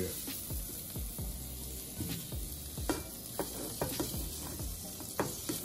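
Shrimp sizzling in a hot cast-iron skillet while a wooden spatula scrapes and knocks against the pan, lifting them out; a short scrape or knock comes about every half second over the steady sizzle.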